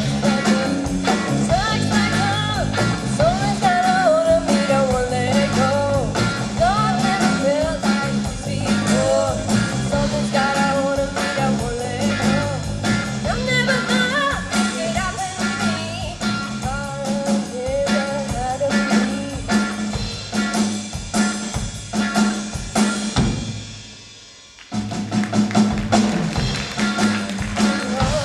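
Live rock band playing: drum kit, bass and guitar under a wavering, bending lead melody. About 23 seconds in, the band nearly drops out, then comes crashing back in about a second and a half later.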